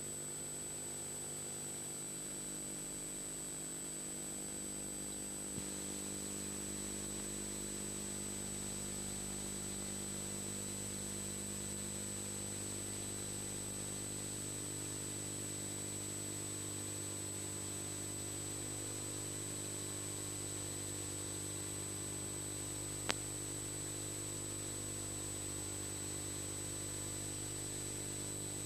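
Steady background hum and hiss from VHS tape playback, with a constant high-pitched whine over it. There is a faint click about six seconds in and a sharper one about three quarters of the way through.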